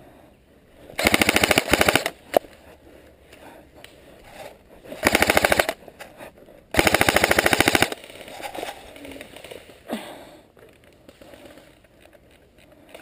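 Airsoft rifle firing three rapid full-auto bursts close by: about a second, then about half a second, then about a second, with a single sharp click after the first burst.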